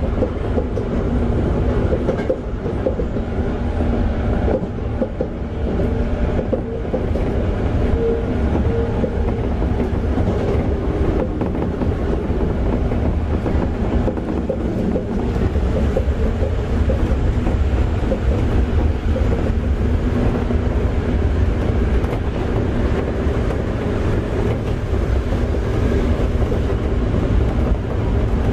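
Toei 5300 series electric train (set 5319, Mitsubishi GTO-VVVF) running along the track, heard from inside the car as a steady rumble of wheels on rail.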